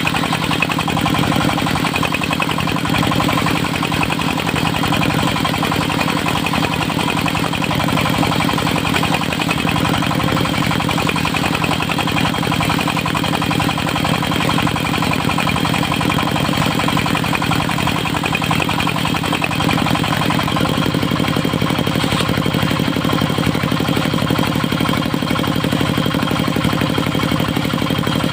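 Engine of a mobile circular-saw sawmill running steadily, with a fast, even beat; its tone shifts slightly about twenty seconds in.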